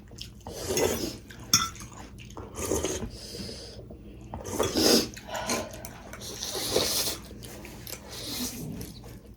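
Close-miked eating: a string of wet bites and slurps, with cutlery clinking on dishes and a sharp click about one and a half seconds in.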